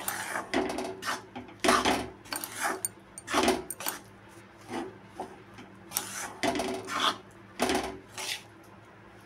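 Steel spatula scraping and stirring gram flour into ghee in a metal kadhai: repeated scraping strokes against the pan, about one or two a second, as the raw besan begins to roast.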